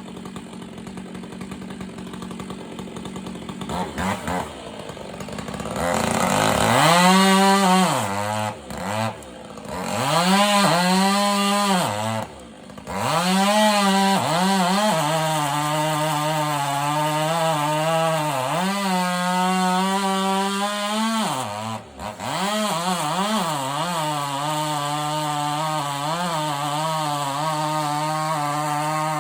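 Chainsaw running at low speed, then revved repeatedly from about six seconds in, its pitch swooping up and down. Through the second half it holds long steady stretches at a lower pitch, as when cutting into wood, with two brief drops in level.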